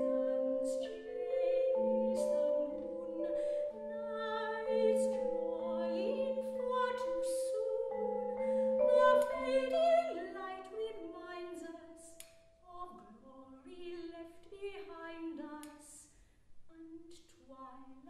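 Contemporary classical song: a female voice singing long held notes over mallet percussion (xylophone and vibraphone), the music growing quieter over the last few seconds.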